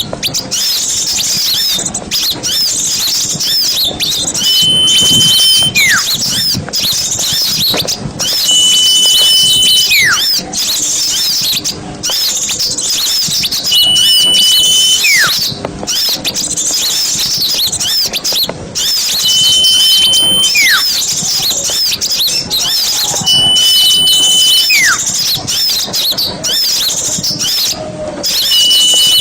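Small songbirds singing a dense, high chattering song. A clear whistle recurs about every four to five seconds: a held note that ends in a whistle sliding down in pitch. The even repeats are typical of a looped masteran song-training track.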